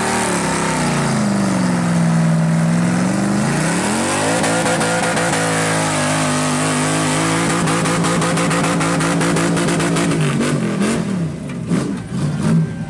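Rock-crawling truck's engine revving hard under load as its tires spin in the dirt climbing boulders. The revs swing up and down, hold high for several seconds, then fall away with a few quick blips near the end, among scattered knocks.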